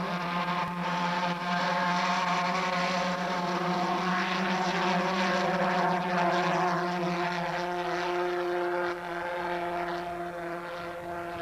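Model-aircraft pulse jet running with a loud, steady, rasping buzz, the sound of the V1 doodlebug. It grows a little fainter near the end.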